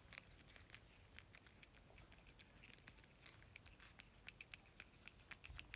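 Faint, irregular clicking and smacking of a cat eating.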